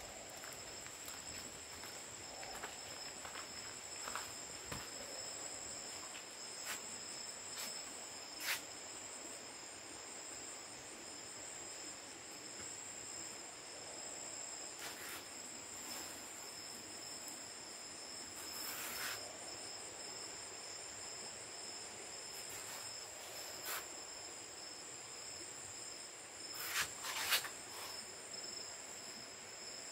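Steady, high-pitched insect chorus holding two constant tones, with a few brief sharp sounds over it, the loudest a few seconds before the end.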